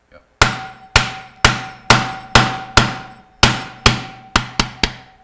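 Hammer striking a thick flat-blade screwdriver that is driven through the rubber of an old motor mount onto its inner steel ring, knocking the mount off the end of a Bell & Gossett Series 60 pump motor. About eleven sharp metallic blows, roughly two a second and quickening near the end, with a faint ringing tone between them.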